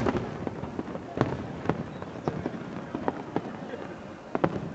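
Aerial fireworks shells bursting: about eight sharp bangs at irregular intervals, sometimes two in quick succession.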